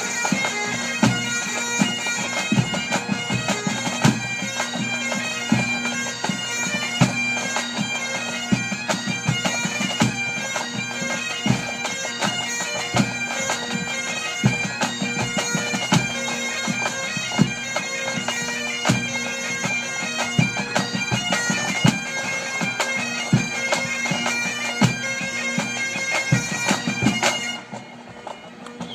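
Pipe band playing: Great Highland bagpipes sounding a tune over their steady drone, with regular drum strokes. The music stops abruptly near the end.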